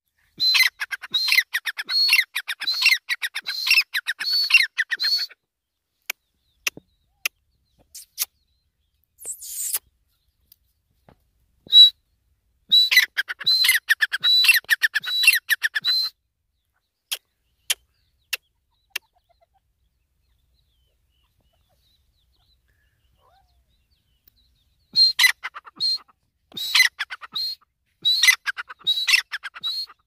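Teetar (francolin) calling: three bouts of loud, repeated whistled notes at about two a second, each bout lasting four to five seconds, with short pauses between bouts.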